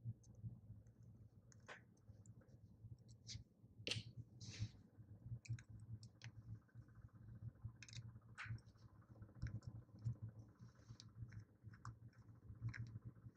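Faint, irregular clicks and taps of a small screwdriver and plastic and metal parts as a baitcasting reel is taken apart, its side plate cap screws being removed.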